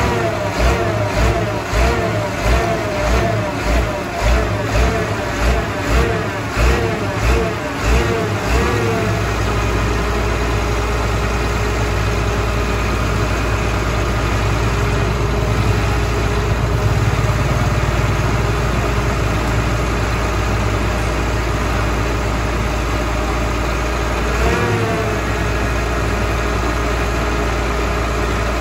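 Heavy truck's diesel engine idling steadily. For roughly the first third a rhythmic pulsing, about two beats a second, runs over it, and about three-quarters of the way through there is a brief rise and dip in the engine's pitch.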